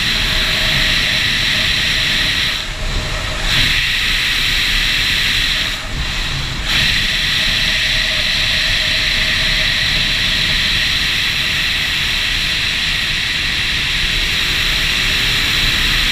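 Wind rushing over the microphone of a Suzuki DR-Z dual-sport motorcycle riding at speed: a loud, steady hiss with the engine running beneath it. The rush dips briefly twice, about three and six seconds in.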